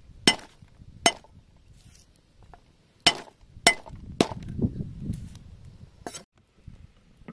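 A large knife striking a wooden chopping block as garlic cloves are crushed and chopped: six sharp knocks at uneven intervals, with a low rumbling stretch for about a second after the fifth.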